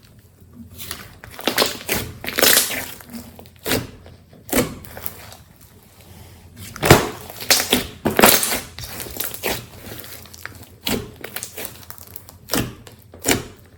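Slime being squished and worked by hand: irregular squishes and pops, several short loud ones and quieter crackly stretches in between.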